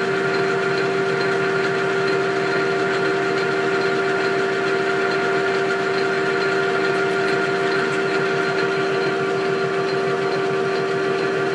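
Metal lathe running steadily, a constant motor and spindle hum with a strong steady tone that does not change.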